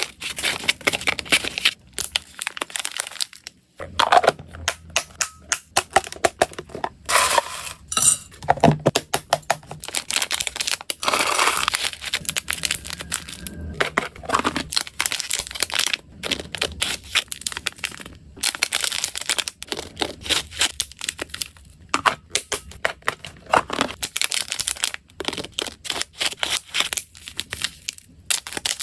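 Thin plastic snack bags and small zip-lock pouches crinkling as they are handled and filled, with dry hamster biscuit treats clicking and clattering as they drop in. It comes as a dense, continuous run of crackles and taps with only brief pauses.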